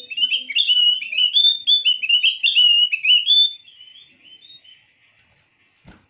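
Javan grey-throated white-eye (opior jawa) calling: a rapid run of loud chirping notes for about three and a half seconds that then trails off. It is the call used to challenge a rival into answering. A single click near the end.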